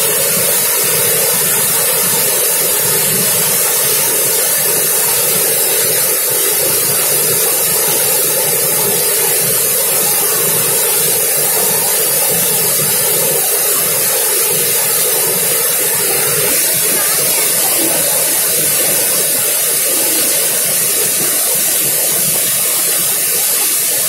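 Dhuandhar Falls, the Narmada River plunging over rock ledges: a loud, steady rush of falling water.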